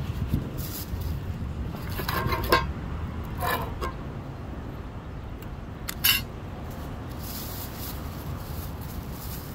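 Shoe-shining kit being handled: a few clinks and clatters of brushes and polish tins set down on stone, the loudest about six seconds in, then a plastic bag rustling near the end. A steady low rumble runs underneath.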